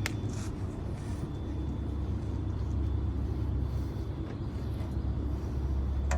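Engine running at a steady idle, a low rumble, with a few short metallic clicks near the start and the end.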